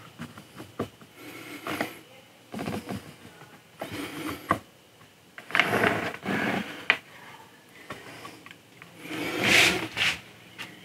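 Hands fitting model kit pieces onto a sculpture: scattered light clicks and knocks of parts touching, with bursts of rubbing and handling noise, the loudest near the end.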